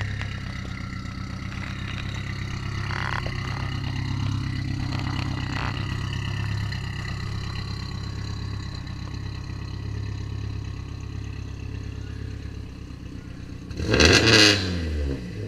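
Modified 2015 Subaru WRX STI's turbocharged 2.5-litre flat-four idling steadily through a straight-through titanium exhaust with no mufflers or resonators. Near the end comes one sharp throttle blip that rises and falls within about a second.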